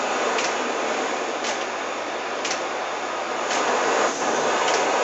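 Gas heat burner flame running with a steady, even hiss while it heats a bronze mirror, with faint ticks about once a second.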